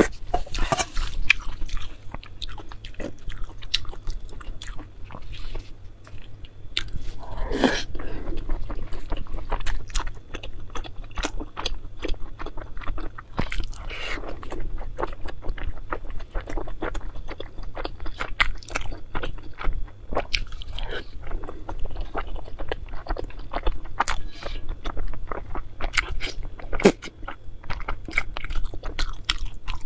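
Close-miked eating: a person biting and chewing food, a steady run of short wet mouth clicks and smacks.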